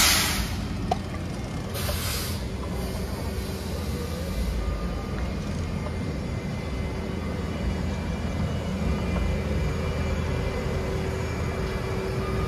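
City street traffic noise: a steady low rumble of vehicles, with two short hisses, one at the start and one about two seconds in.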